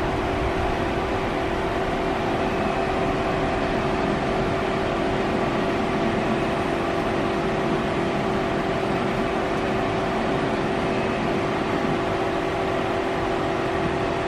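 Citizen M32 Swiss-type CNC automatic lathe powered up and idling: a steady mechanical hum with a constant low tone and no changes.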